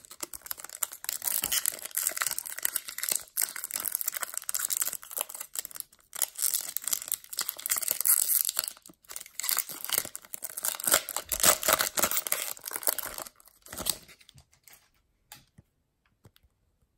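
The foil wrapper of a Topps Chrome baseball card pack is torn open and crinkled by hand, crackling for about thirteen seconds. A few faint clicks follow near the end.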